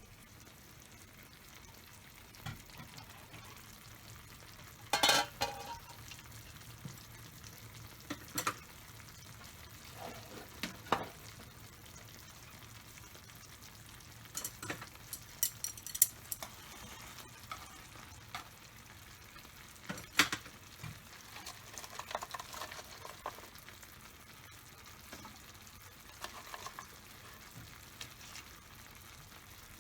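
Food sizzling in a frying pan, with a utensil now and then scraping and knocking against the pan as the food is stirred and turned.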